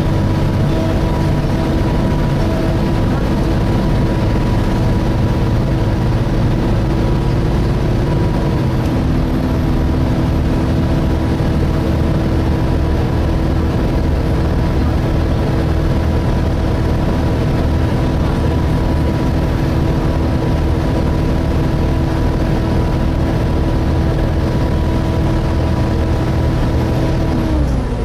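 Volvo B7TL double-decker bus's engine cooling fan running with a steady, hoover-like whine of several held pitches over engine and road rumble, heard from inside the bus. The whine's pitch drops just before the end.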